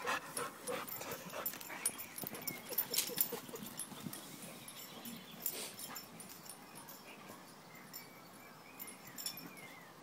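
A Doberman and a Staffordshire bull terrier play-fighting: short dog sounds mixed with scattered clicks and scuffs, busier in the first half and quieter in the second.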